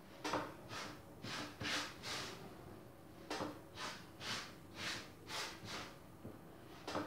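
Hands kneading stiff shortcrust pastry dough on a table: a rhythmic rubbing and pressing about twice a second, with a short pause about three seconds in.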